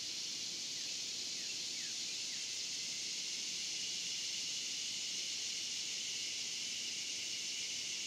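Steady chorus of cicadas, an even high-pitched hiss with a thin tone on top. A few faint, short falling bird chirps sound in the first couple of seconds.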